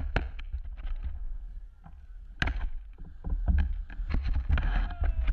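Storm wind buffeting the microphone in a heavy low rumble, with scattered sharp knocks and rattles of debris.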